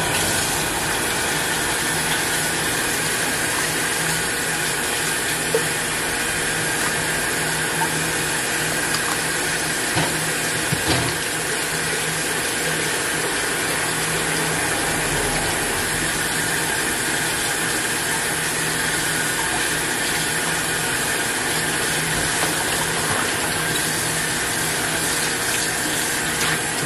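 Kitchen tap running water steadily into a sink, starting and stopping abruptly.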